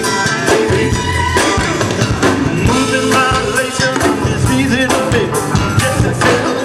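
Live band music: an upbeat funk groove with a steady drum beat, with some singing over it.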